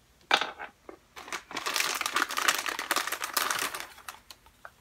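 Clear plastic kit packaging crinkling as parts are handled in it: a sharp rustle just after the start, then dense crinkling for about two and a half seconds that dies away near the end.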